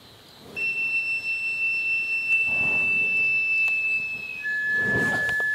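Burning fire-dance props whooshing past in repeated swells as they are swung, under a high, steady whistle-like note that drops to a lower held note about four seconds in.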